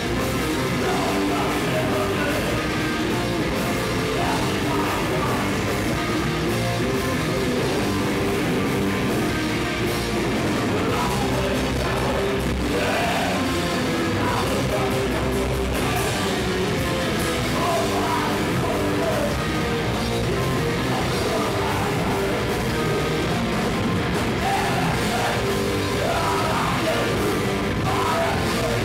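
Hardcore punk band playing live: distorted electric guitars, bass and drum kit at a steady high level, with shouted vocals in parts, heard from the crowd.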